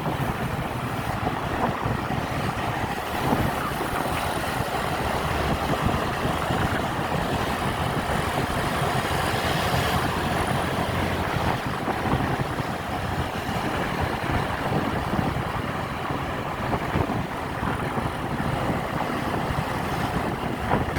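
An intercity bus on the move: a steady mix of engine and road noise, with no sharp events.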